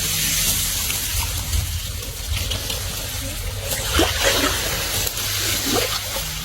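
Water splashing and trickling, with a few sharper splashes about four seconds in, over a low steady rumble.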